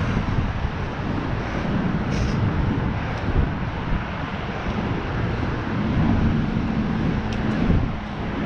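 Wind buffeting the microphone over a steady low road rumble from a fixed-gear bicycle riding uphill.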